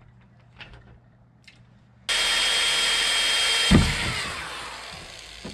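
Faint clicks of small parts being handled, then a power drill starts suddenly about two seconds in, running at full speed as it bores into a plastic kayak deck. About halfway through a loud knock, after which the drill's sound falls away and stops.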